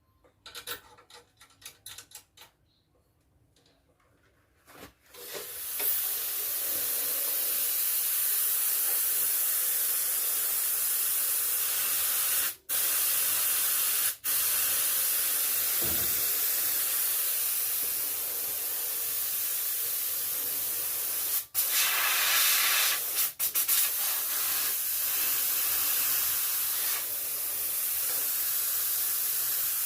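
Pressurised gas hissing steadily from a nozzle or hose, starting about five seconds in after a few faint clicks. The hiss cuts off for a moment about four times.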